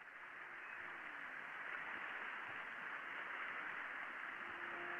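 Steady hiss of radio static fading in and growing slowly louder, with music beginning faintly near the end.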